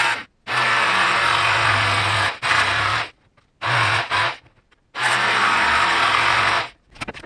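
Power saw cutting acrylic sheet, run in about five starts and stops, the longest under two seconds.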